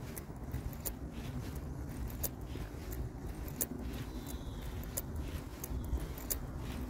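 Outdoor park ambience: a steady low rumble with irregular sharp clicks, and a faint bird call about four seconds in.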